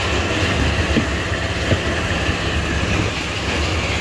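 Steady low mechanical rumble, like a motor running, with a few faint ticks and clatter over it.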